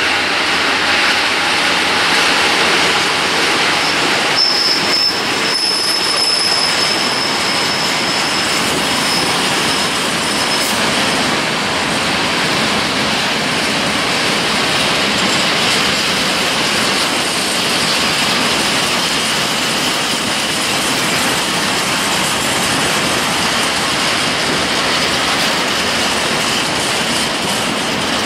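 Freight train of open coal wagons rolling past close by, a steady loud rumble and clatter of steel wheels on the rails. A thin high wheel squeal rings out from about four seconds in to about ten seconds in.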